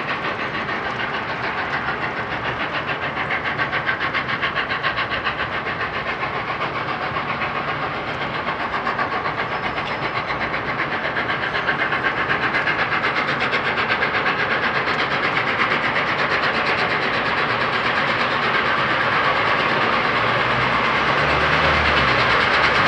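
Peppercorn A1 Pacific steam locomotive 60163 Tornado, a three-cylinder engine, pulling away with its train, its chimney exhaust beating in a quick, even rhythm. The sound grows steadily louder as the locomotive comes closer.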